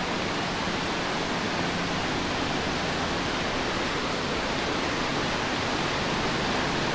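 Steady rush of fast-flowing river water below a waterfall, an even, unbroken noise.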